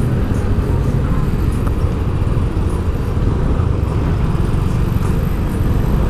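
Steady low rumble of road traffic.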